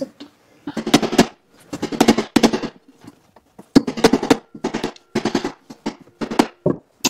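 Claw hammer striking steel alligator belt lacing on a conveyor belt end, hammering the lacing teeth into the belt. About five bursts of quick sharp blows, several strikes in each.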